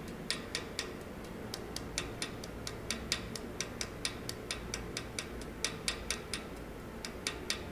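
Small metal hammer tapping lightly and steadily on the end of a metal wire rivet, about four taps a second. The taps flare the wire end into a domed mushroom rivet head.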